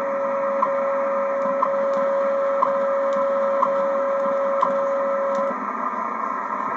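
Shortwave time-signal broadcast, typical of WWV, received on a Ten-Tec Paragon: a steady audio tone with a short tick once every second over the receiver's hiss. The tone stops about five and a half seconds in.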